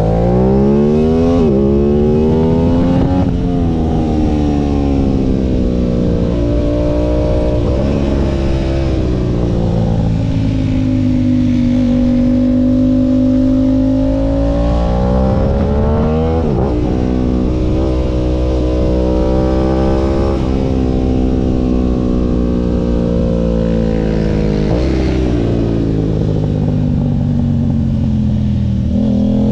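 Aprilia RS660's parallel-twin engine revving under acceleration. The pitch climbs and drops sharply at each gear change, twice in quick succession at the start, then holds steadier with slower rises and dips.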